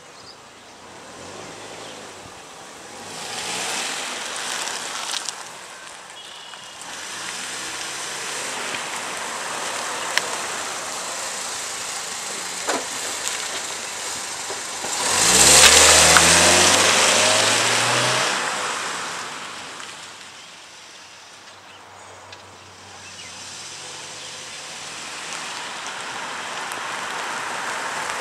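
Chevrolet Malibu's four-cylinder engine accelerating hard from a standstill in a takeoff test. Its note rises loudest as the car pulls past about halfway through, then fades as it drives off, and the engine builds again near the end.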